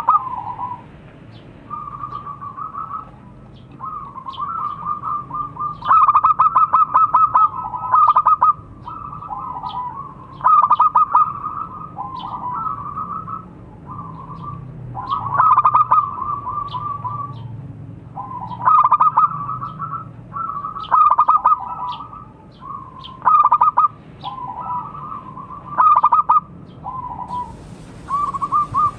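Zebra dove (perkutut) cooing: a string of rapid trilling coo phrases every second or two, the louder ones broken into fast stuttering pulses, softer phrases between them.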